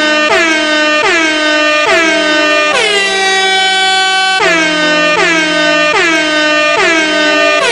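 MLG-style air horn meme sound effect: a rapid run of short blasts, each sliding down in pitch as it starts, broken by a longer held blast a little under three seconds in.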